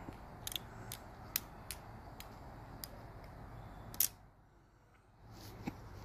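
Metal-handled balisong (butterfly knife) being flipped through a repeating loop trick: sharp metallic clicks at irregular intervals as the swinging handles strike the blade's tang pins and each other. The loudest click comes about four seconds in, followed by a brief hush and one more click near the end.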